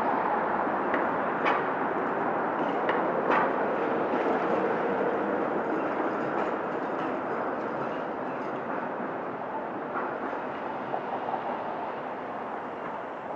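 TTC articulated streetcar (ALRV) rolling through an intersection: steel wheels rumble on the rails, with sharp clicks and clanks as it crosses track joints and special work in the first few seconds. The sound then fades as it moves away.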